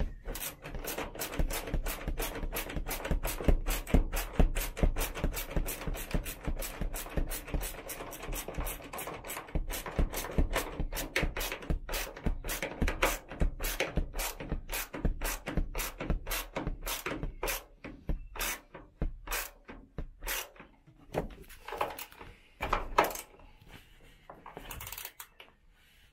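Hand ratchet clicking over and over, winding in the bolts that hold a Dormobile roof bunk frame. The clicks come quickly and evenly, then turn sparse and irregular for the last several seconds.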